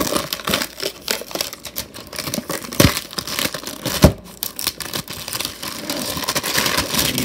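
Plastic shrink wrap being torn and pulled off a cardboard box, crinkling and crackling throughout, with two louder knocks about three and four seconds in as the box is handled.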